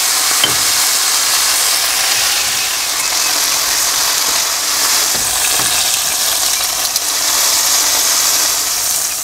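Marinated chicken pieces frying in hot oil in a pan: a steady sizzle.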